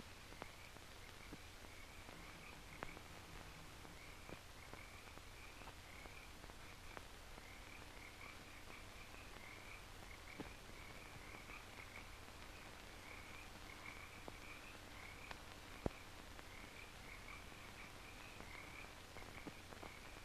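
Faint, steady chorus of high chirping night creatures, repeating in short trills, as the night ambience of an old film soundtrack. Under it are soundtrack hiss, a low steady hum and occasional sharp clicks of crackle.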